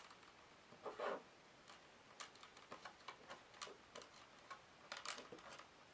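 Faint, irregular light clicks and taps from hand soldering work on an LED panel, with a slightly louder knock about a second in and a small cluster of clicks around five seconds.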